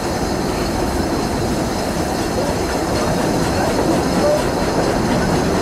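Steady running noise of a steam-hauled 3ft narrow-gauge train under way, heard from a carriage window: the coaches' wheels rumbling along the track.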